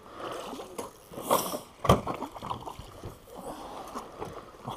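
A hooked fish splashing and thrashing at the surface beside the boat as it is brought in for netting, with a sharp knock just before two seconds in.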